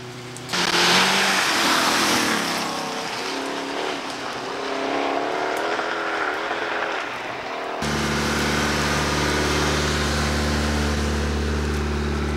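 Rally car engine revving with rising and falling pitch over a loud rushing noise that starts suddenly half a second in. About eight seconds in it switches abruptly to a steady low engine hum.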